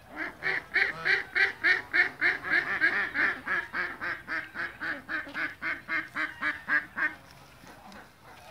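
Duck quacking in a long rapid run, about four quacks a second, stopping a second or so before the end.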